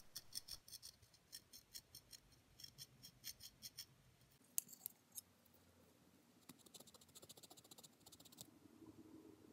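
Emery cloth rubbed in quick, short strokes against the edge of a sewing machine's metal needle plate, smoothing down small needle dings: a faint scratchy rasp in runs of strokes, broken about halfway by a pause and a couple of light clicks.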